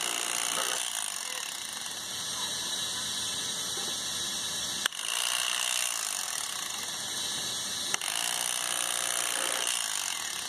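Electric fillet knife running steadily as it skins a fish fillet, with two sharp clicks about five and eight seconds in.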